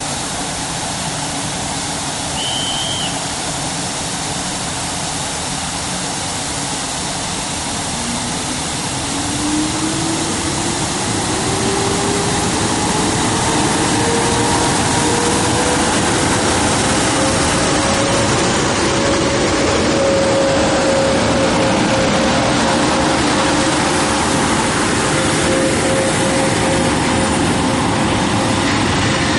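EP09 electric locomotive pulling away with its train. Over a steady rushing noise, a whine from its traction motors starts about eight seconds in, rises in pitch as the train gathers speed, then levels off while the coaches roll past.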